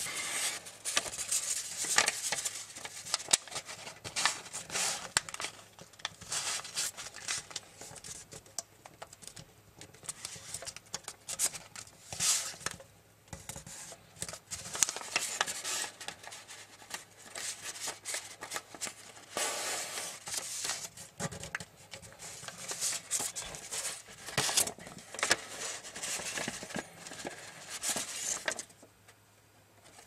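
Sheet of tissue foil paper crinkling and rustling as it is folded and creased by hand, in irregular crackles with a few short pauses.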